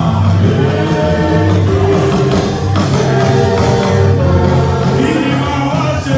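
Loud gospel music with group singing over a steady bass line.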